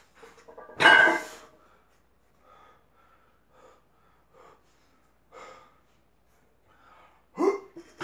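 A man breathing hard and grunting while deadlifting a heavy hexagonal bar: a loud forced breath about a second in, short faint breaths through the middle, and another grunt near the end.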